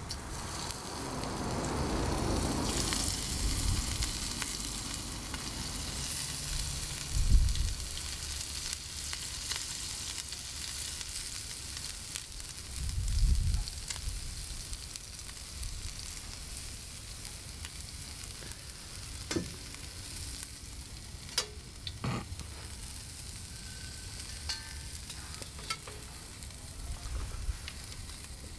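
Oily herb mix sizzling on a hot Cobb grill as hands rub it into a whole snapper on the rack: a steady hiss with a couple of dull thumps of handling and a few light ticks.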